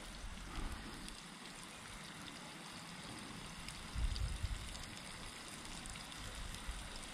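Flour-coated pieces of wels catfish sizzling and crackling steadily in hot sunflower oil in a pan, with a brief low thump about four seconds in.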